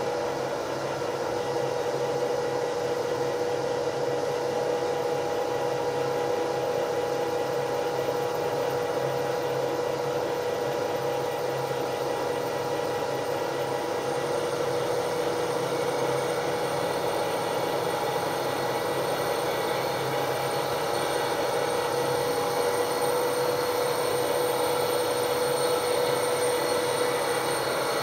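ИИ5018-М friction test machine running with its oil supply cut off: a cast-iron roller turning against a chrome-plated compression-ring pad, heard as a steady mechanical whir with a steady whine. The unlubricated friction pair is heating up on its way to scuffing.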